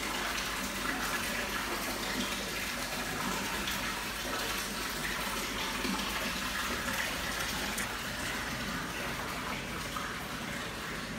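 A small spout's jet of water splashing steadily into a plunge pool.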